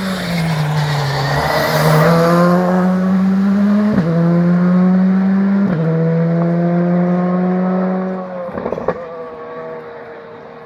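Rally car engine easing off for a hairpin, then accelerating hard away through two quick upshifts, its note climbing between shifts. It lifts off with a crackle and a sharp pop near the end and fades into the distance.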